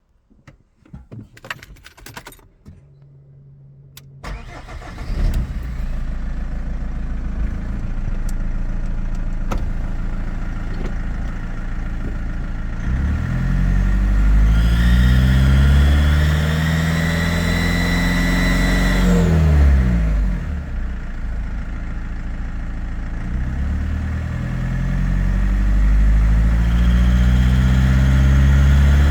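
BMW E46 320d's four-cylinder turbodiesel being started: a few clicks and a short hum, then the engine catches about four seconds in and idles. It is revved up and back down twice, with a high whine that rises and falls with the revs.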